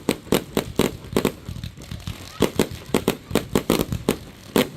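Fireworks going off: a rapid, irregular run of sharp bangs and pops, several a second, with a short pause about two seconds in.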